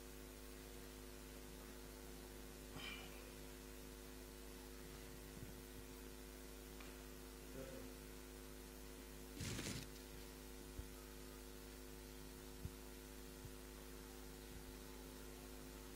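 Steady electrical mains hum with a faint hiss, broken just after halfway by a short noisy burst and a few faint ticks.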